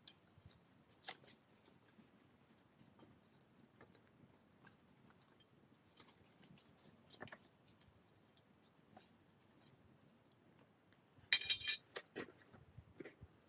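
Faint scattered clicks and small knocks, then a short cluster of sharp, bright clinks about eleven seconds in: small hard objects being handled.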